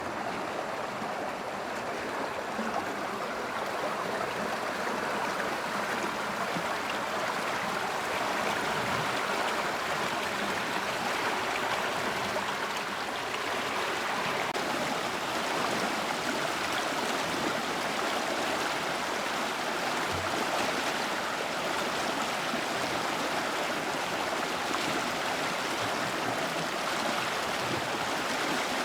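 Fast-flowing water rushing steadily, an even stream-like wash with no breaks.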